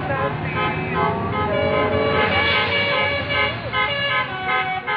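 Bus 'telolet' Basuri multi-tone musical horn playing a quick tune, its notes changing several times a second, over the low rumble of the bus.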